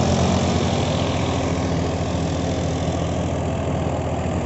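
Farmtrac 60 Supermaxx tractor's 55 hp three-cylinder diesel engine running at about 1800–1900 rpm under load while pulling an 11-tine cultivator through the soil, with a steady, even throb. Only the engine is heard, with no rattle from the bonnet or the hydraulics.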